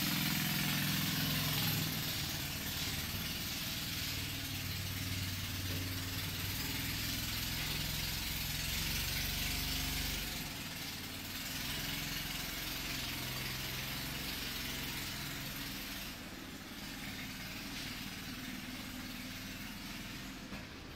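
An engine running steadily at idle, with a constant hiss over it.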